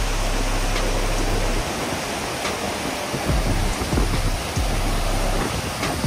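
Steady rush of a large waterfall and the whitewater river tumbling over rocks below it. Irregular low buffeting of wind on the microphone runs through it.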